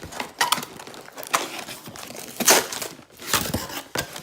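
Shipping package being opened and handled by hand: irregular crinkling and tearing of the packaging, loudest about two and a half seconds in.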